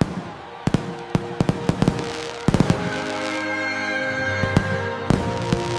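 Fireworks going off: a quick series of bangs and crackles, densest in the first half, with gentle background music of held tones coming in about halfway through.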